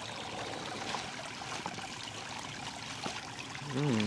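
Steady rush of flowing water, with a short low vocal sound near the end.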